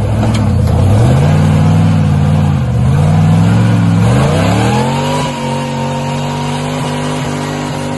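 Lifted off-road Jeep's engine revving up and down, then revved hard about four seconds in and held high and steady while its big tyres spin in mud.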